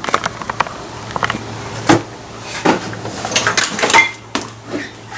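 Irregular knocks, clunks and light clatter of hands handling hard objects, the loudest about two seconds in and a cluster around three to four seconds in, over a faint steady hum.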